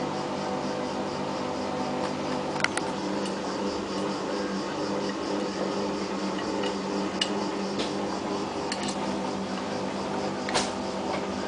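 Hotpoint-Ariston AVXXF137 washing machine running through its wash cycle: a steady motor hum with a few sharp clicks scattered through it.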